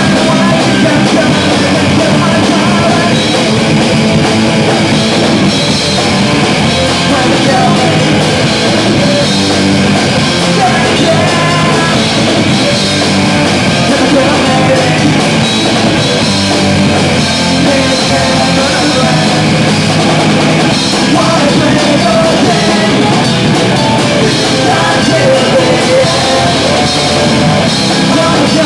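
Punk rock band playing live, with electric guitar and a drum kit, loud and unbroken.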